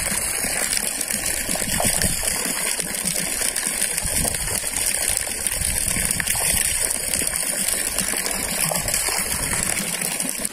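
Steady gush of artesian-well water falling from a high overflow pipe into a fish tank, the drop aerating the water.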